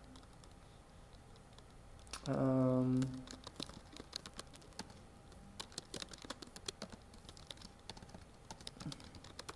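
Computer keyboard typing in quick, irregular clicks, with a brief steady hum from a person's voice about two seconds in, the loudest sound here.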